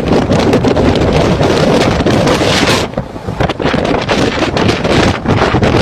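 Storm wind buffeting the microphone hard over the rush of heavy seas around a ship, easing briefly about halfway through before gusting up again.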